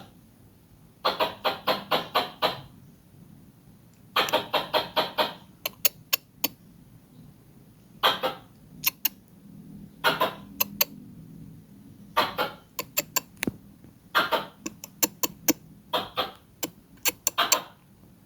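Squirrel chirping: short bursts of quick, rhythmic chirps, several a second, repeated every few seconds.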